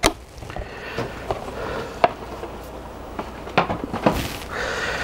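Quiet handling noise: a few scattered sharp clicks and light knocks over a low background hiss, with a short hiss about four seconds in.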